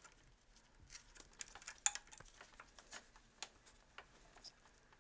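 Faint, sparse light metallic clicks and clinks at irregular intervals from a hand tool and bolts being worked in an engine bay. The sharpest click comes about two seconds in.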